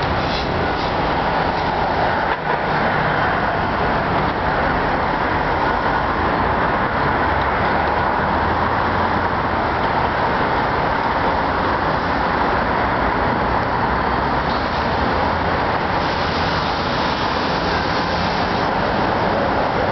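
Steady noise of road traffic, a continuous dense rush that grows brighter for a few seconds near the end.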